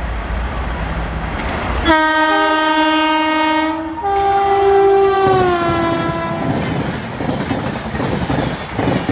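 Indian Railways WAP-4 electric locomotive sounding its horn in two long blasts as an express train comes through at high speed. The second blast falls in pitch as the locomotive passes. Then the coaches rush by with a quick rattle of wheels on the track.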